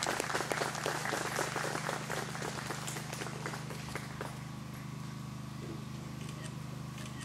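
A crowd applauding, the clapping thinning and dying away about four seconds in. A steady low hum runs underneath.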